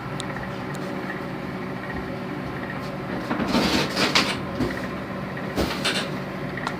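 Microwave oven running with a steady hum while a bar of Ivory soap heats inside. There are louder bursts of rustling noise at about the middle and again near the end.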